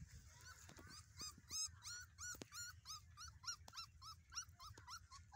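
Puppy whimpering in a quick run of short, high whines, about four a second, with a few faint taps among them.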